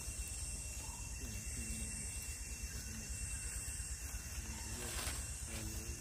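Outdoor ambience: a steady high hiss that swells and fades every second or two over a low rumble, with a few faint short calls that fall in pitch.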